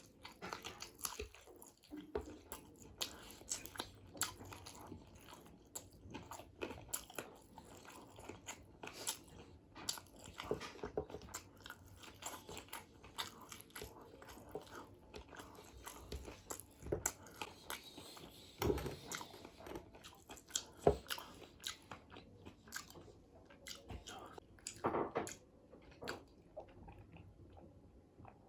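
Close-miked eating: a person biting and chewing chicken biryani, with irregular crunching bites and mouth sounds, a few of them louder.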